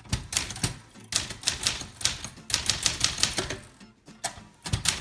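Manual typewriter being typed on: quick runs of sharp key strikes in bursts of about half a second to a second, separated by short pauses.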